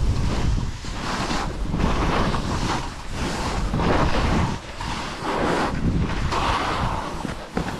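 Wind buffeting a head-mounted camera's microphone during a ski descent, a steady low rumble. Over it, skis hiss and scrape through the snow in swells that rise and fall with each turn.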